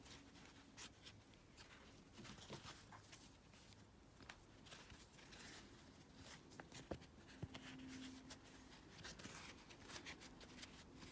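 Faint rustling and light ticks of yarn being pulled through crocheted stitches by hand to gather them tight, over near-silent room tone.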